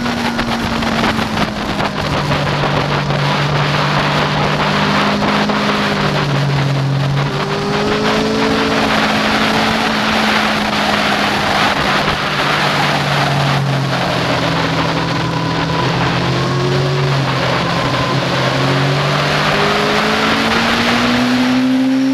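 Yamaha FZ6n's 600 cc inline-four with an aftermarket Leo Vince exhaust, heard from onboard at speed: the engine note falls over the first two seconds, wavers up and down through a long bend, and climbs steadily near the end as the throttle opens. Wind rushes over the microphone throughout.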